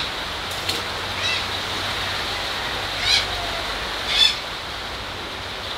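Steady hiss of falling rain, with a handful of short bird calls over it; the loudest calls come about three and four seconds in.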